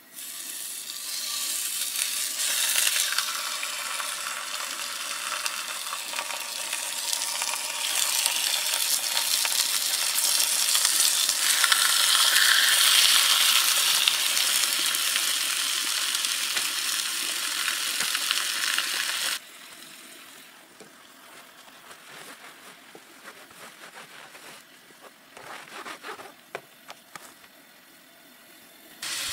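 Chicken breasts searing in a hot cast iron skillet, a loud steady sizzle that stops abruptly about two-thirds of the way through, leaving a few faint knocks.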